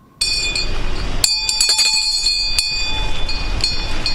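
A Taoist priest's hand bell being shaken, ringing in irregular strokes with a bright metallic jangle over a steady hiss. It starts abruptly and is rung to open a ritual invocation.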